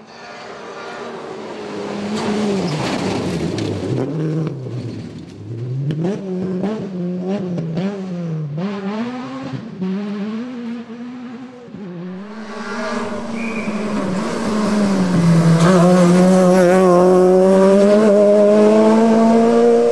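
Toyota GT86 rally car at full stage pace. The engine revs rise and fall sharply through gear changes and lifts as the car passes close by. Near the end it is loudest, revs climbing steadily under hard acceleration.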